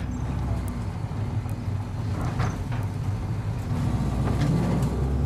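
A coach's engine running steadily under way, with low road rumble and a few faint rattles.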